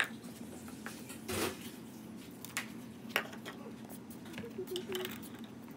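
Spatula scraping and knocking against a metal mixing bowl while dry flour mix is stirred: scattered light clinks and a brief scrape about a second and a half in, over a faint steady hum.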